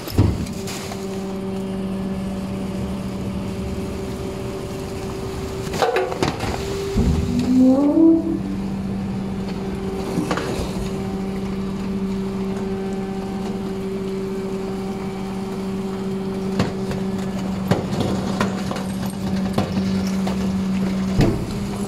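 Rear-loading garbage truck's hydraulic compactor running a packing cycle: a steady hum from the engine-driven hydraulic system, with a brief rising whine about a third of the way in and a few metal clunks as the packer blade moves through the hopper.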